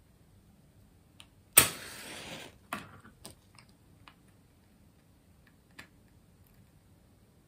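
A wooden match struck on a matchbox about a second and a half in, flaring with a short hiss that lasts under a second, with a smaller burst just after. A few faint clicks of handling follow.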